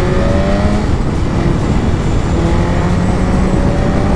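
Sport superbike engine under way, its pitch slowly rising as it accelerates, dropping back once about a second and a half in and then climbing again, over a steady rush of wind and road noise.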